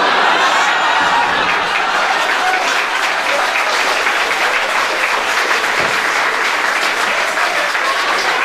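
Live audience applauding steadily in response to a joke's punchline.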